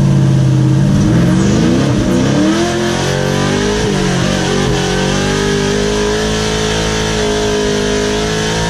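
Big-cammed LS1 V8 of a race-prepped truck heard from inside the cab, rising in revs as it accelerates during the first few seconds, then holding fairly steady revs while driving.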